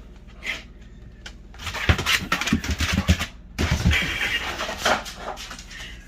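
A dog dashing after a thrown toy indoors, its paws thudding, scrabbling and clattering in a quick irregular run of knocks for about three seconds, then quieter.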